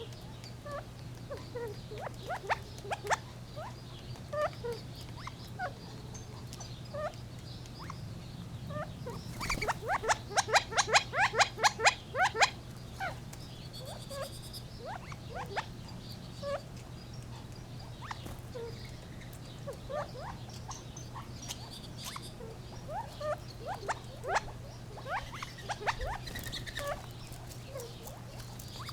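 Gambel's quail calling: scattered short clucks and chips, with a rapid run of sharp, loud calls lasting about three seconds near ten seconds in. A steady low hum sits underneath.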